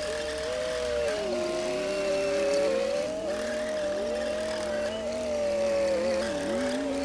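Komatsu D60P bulldozer running and working, a steady machine sound with several whining tones that slowly rise and fall in pitch.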